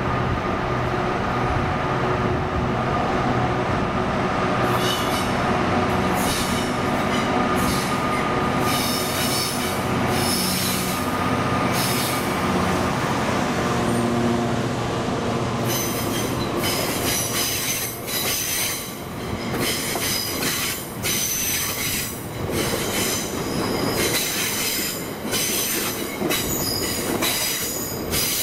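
A Class 66 diesel-electric freight locomotive with an EMD two-stroke V12 engine drones steadily as it passes. It is followed by a long rake of hopper wagons rolling by, with a quick, uneven clatter of wheels over the rail joints and a high-pitched squeal from the wheels starting about 16 seconds in.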